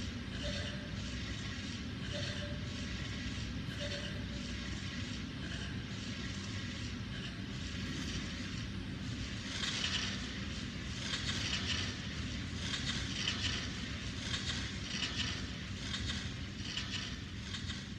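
Live electronic sampler music: a dense, noisy texture over a steady low drone, with rough hissing bursts coming in irregularly and growing stronger from about halfway through.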